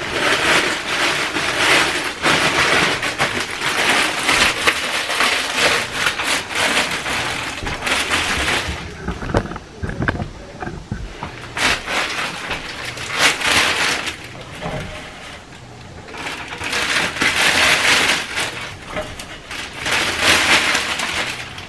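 Thin plastic bag rustling and crinkling as it is handled and rummaged through, coming and going, with quieter moments around the middle.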